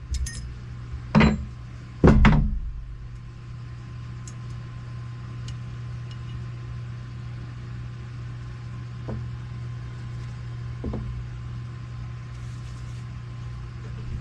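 A steady low hum, with several knocks in the first two or three seconds and a couple of faint taps later.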